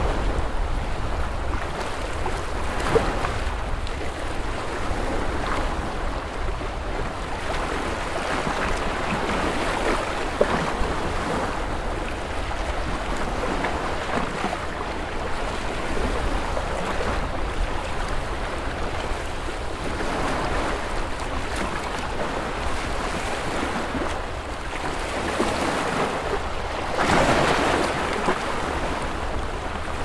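Small waves washing on a lakeshore: a steady rush of water that swells and ebbs, with one louder swell near the end. A low wind rumble on the microphone runs underneath.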